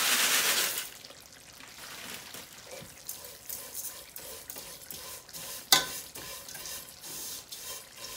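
Liquid poured into a hot steel pot of toasted vermicelli hisses loudly, then cuts off about a second in. After that a spoon stirs the vermicelli with soft scraping, and there is one sharp metal clink of the spoon against the pot about two thirds of the way through.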